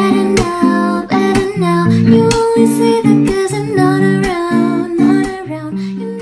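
Music: a steady run of plucked notes under a melody line, fading out near the end.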